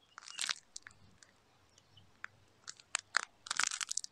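Scattered light clicks and crackles from the plastic windscreen-repair bridge and its resin chamber being handled and seated against the glass, in a small cluster about half a second in and a busier run near the end.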